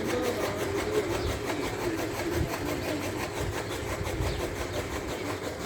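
A machine's engine running with a steady, rough drone.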